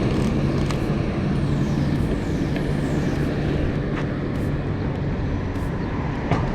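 Steady rumble of street traffic with a low engine hum, and a few faint clicks.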